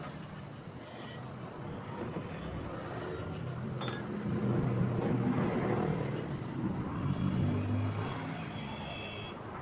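A motor vehicle's engine running, growing louder through the middle and then easing off.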